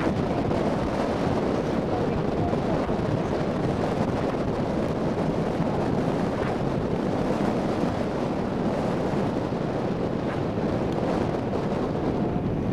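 Strong wind blowing hard and steadily, buffeting the microphone.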